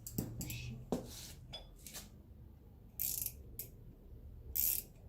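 Light metallic clicks and scrapes of a harmonic balancer puller's bolts and tool being worked by hand while the bolts are threaded into a small-block 350's harmonic balancer: a sharp click about a second in, then short scraping rasps around three and four and a half seconds in.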